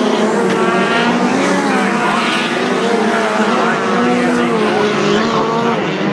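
Several speedcar engines racing on a dirt oval, their pitch rising and falling as the drivers come on and off the throttle through the turns.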